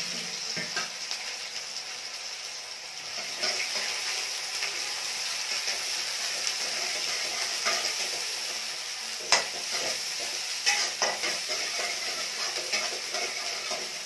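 Chopped onion and cumin sizzling steadily in a hot kadhai as a tadka. A metal spatula stirs them, scraping and clicking against the pan a few times about two-thirds of the way in.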